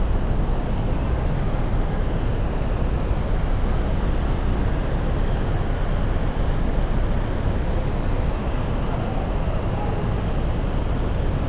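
Steady harbour-side ambience: a continuous deep rumble under a wash of noise, with no distinct events.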